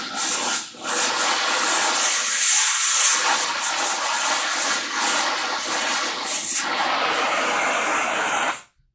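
Gas cutting torch blowing a steady hiss during a cut. It stops abruptly near the end.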